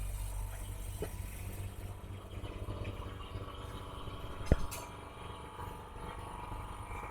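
Screen laminating machine running a lamination cycle with a steady low hum, and a single sharp click about four and a half seconds in.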